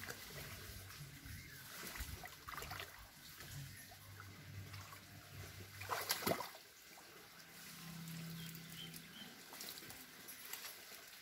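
Muddy water sloshing and trickling as bare feet wade and hands stir the mud of a flooded irrigation channel, with one louder slosh about six seconds in.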